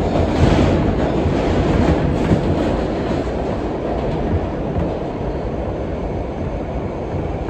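R160B subway train running along the track: a steady rumble of wheels on rail with a few sharp clicks over rail joints, easing slightly in loudness in the second half.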